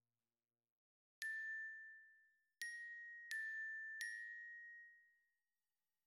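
Four soft bell-like notes at one pitch, struck a little over a second apart, each ringing briefly and fading: a sparse chime line in a produced beat.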